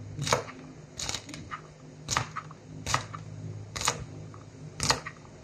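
Kitchen knife chopping long green beans on a thin plastic cutting mat: sharp knocks of the blade striking the mat about once a second, with a low steady hum underneath.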